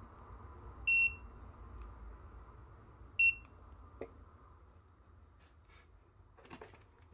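Aneng 681 digital multimeter's built-in beeper giving two short, high beeps about two seconds apart as the meter powers up. A small click follows, then brief handling noise near the end.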